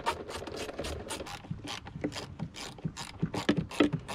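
Hand ratchet's pawl clicking in quick, uneven runs as a bolt is turned, the loudest clicks near the end.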